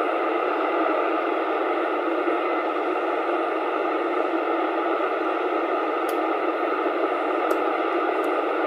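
CB radio receiver hissing with steady static between transmissions, with no station coming through, and a few faint clicks in the second half.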